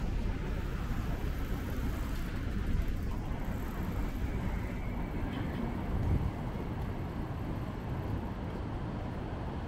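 City street ambience: a steady low rumble of road traffic, swelling briefly about six seconds in as a vehicle passes.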